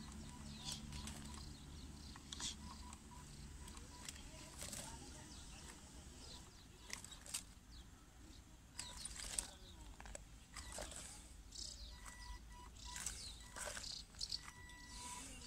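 Radio-controlled crawler truck working slowly over loose stones and rock, with scattered faint clicks and crunches from its tyres on the gravel.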